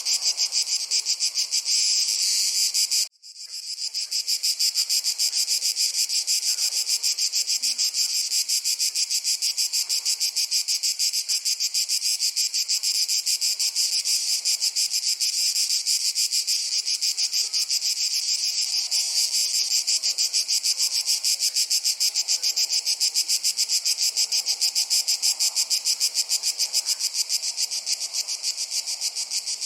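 A chorus of crickets chirping in a dense, fast pulsing trill that never lets up, with a brief dropout about three seconds in.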